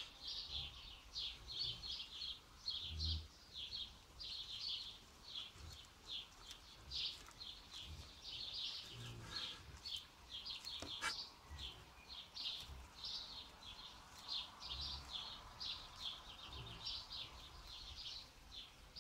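Small birds chirping continuously, a rapid run of short high notes, with occasional low thuds and a single sharp click about halfway through.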